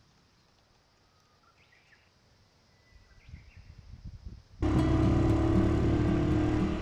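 Near-quiet outdoor ambience with a few faint chirps, then a low rumble that grows from about three seconds in, before background music with a beat cuts in loudly about four and a half seconds in.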